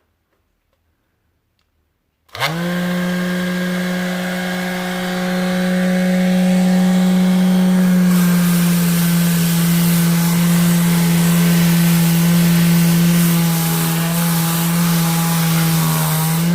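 Electric detail sander (a sanding mouse) switching on about two seconds in and running steadily with an even motor hum, its sandpaper hissing against the surface. The hiss grows louder a few seconds later as the pad is pressed into the work.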